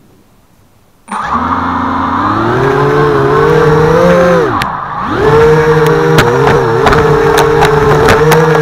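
HobbyKing FPV250 quadcopter's electric motors and propellers spinning up from rest about a second in, heard loud through the quad's own onboard camera: a whine that rises in pitch, dips briefly near the middle, then holds steady. Sharp clicks come through in the second half.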